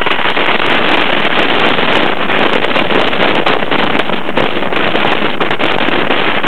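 Heavy wind roaring over the microphone of a rider on a fast-moving steel roller coaster train, with the faint rattle of the train on its track underneath.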